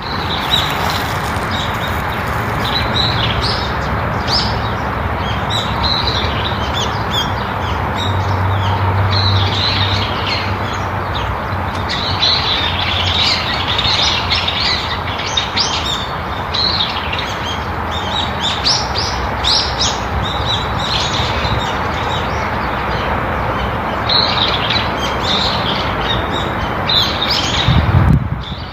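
Several birds chirping and calling in quick, overlapping bursts, over a steady background hiss of outdoor ambience. Just before the end there is a short low thump and the sound changes abruptly.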